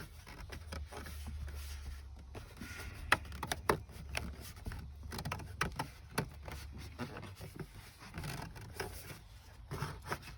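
Plastic dashboard trim being worked loose by hand: scattered clicks, knocks and light scraping, with two sharper knocks about three seconds in, over a low steady hum.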